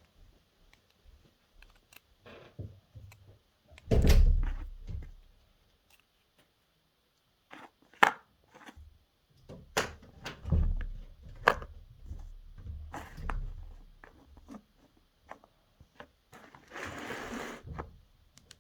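Toys being handled: a series of clicks, knocks and thuds, with a loud low thump about four seconds in and a brief rushing noise near the end.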